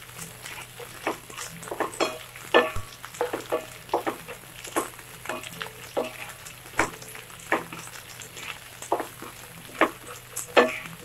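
Chopped onions frying in oil in a nonstick pan and being stirred with a spatula: a sizzle under irregular scrapes and taps of the spatula against the pan, about two or three a second.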